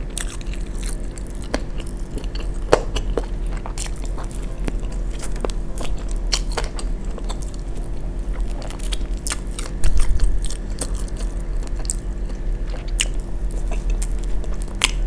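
Close-miked biting and chewing of fried chicken wings in barbecue sauce, full of small mouth clicks, over a steady low hum. One louder thump about ten seconds in.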